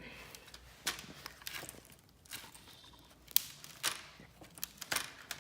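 Wire cutters snipping and clicking on a laptop's internal wire, a handful of sharp clicks spaced out, the loudest about three and a half seconds in.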